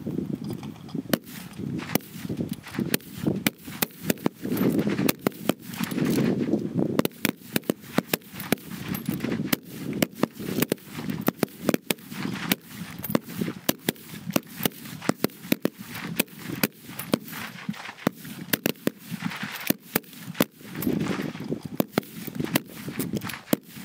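Many rifle shots in quick, uneven succession from a firing line of bolt-action rifles, among them a 6.5x55 Swedish Mauser m96, during a timed rapid-fire string at 100 m.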